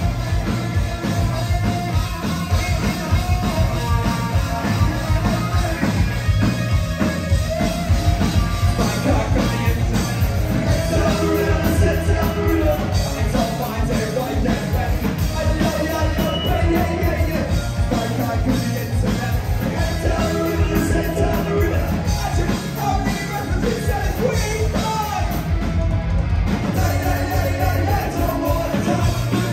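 Live rock band playing: a singer's vocals over electric guitar and drums with a steady driving beat, loud throughout.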